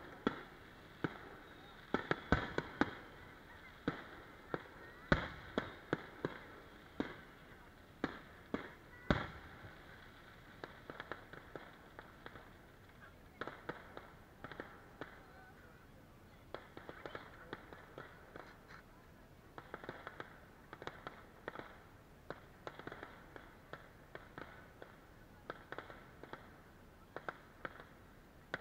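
Fireworks exploding: a run of loud, sharp bangs for the first ten seconds or so, then quieter clusters of small crackling pops.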